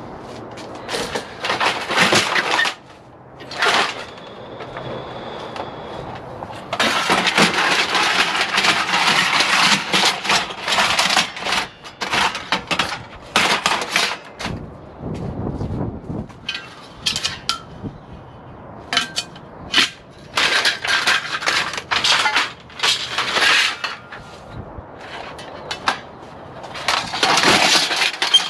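Lengths of extruded 6063 aluminum clanking and rattling against each other as they are handled and slid into a car's cargo area, in irregular runs of metal clatter with short pauses between.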